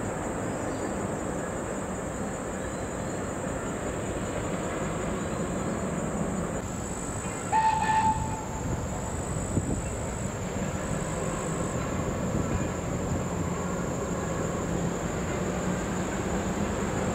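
A distant passenger train rumbling steadily along its track, with one short, high whistle blast from the Thomas the Tank Engine replica locomotive about halfway through.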